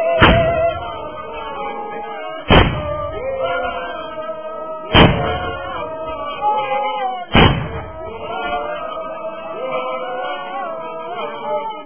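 A group of voices singing together, with four loud, sharp bangs at an even pace, about two and a half seconds apart.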